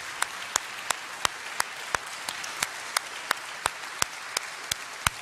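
Congregation applauding: a steady wash of many hands clapping, with one close pair of hands clapping sharply and evenly about three times a second over it.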